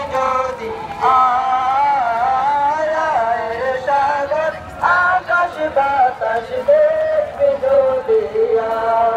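A man singing an Islamic devotional song (naat) with long held notes that glide up and down.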